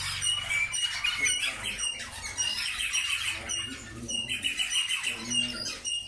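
Many caged canaries chirping and singing together, with several rapid rolling trills among the short high chirps.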